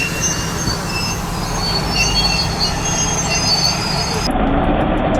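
Heavy machinery rumbling low with repeated short, high-pitched metal squeals. About four seconds in, the sound cuts abruptly to a steadier engine drone.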